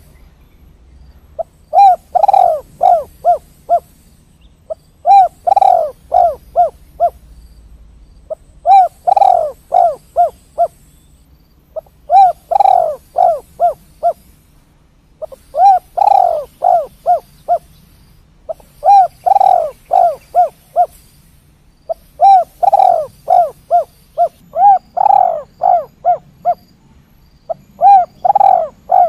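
Spotted dove (tekukur) cooing, the "kuk 3" song type: a loud phrase of a longer gliding coo followed by a few quick shorter notes, repeated about every three and a half seconds.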